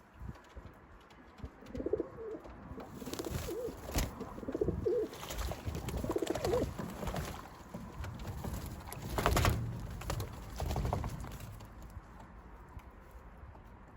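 Racing pigeons cooing, several wavering coos from about two to seven seconds in, with a few sharp knocks and a louder scuffling burst about nine seconds in.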